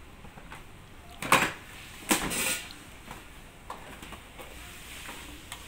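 Kitchen handling noises: two short scraping knocks about a second apart, the second a little longer, with a few faint ticks around them.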